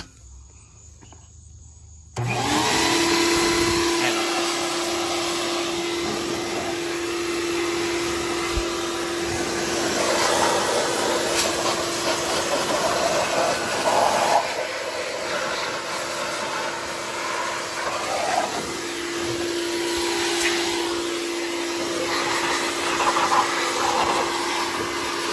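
Shop-Vac 4-gallon wet/dry vacuum running in blower mode, blowing water off a freshly washed engine bay. It switches on about two seconds in and then runs steadily with a constant hum, while the rush of air rises and falls.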